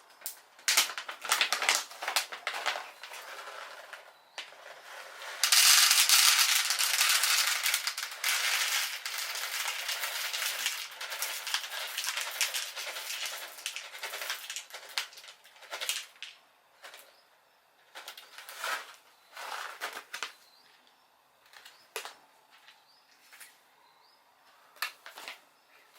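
Loose coffee beans clattering. A dense rush of bean clatter starts suddenly about five seconds in and thins out to scattered single clicks, consistent with a 100 g batch of green beans being poured into the roaster.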